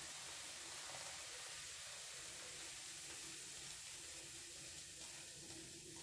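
Faint steady fizzing of white vinegar reacting with baking soda in a stainless steel bowl as the foam is slowly stirred.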